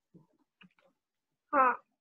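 A single short spoken syllable, such as a brief 'haan' or 'hmm', about one and a half seconds in, between quiet pauses with a few faint small sounds.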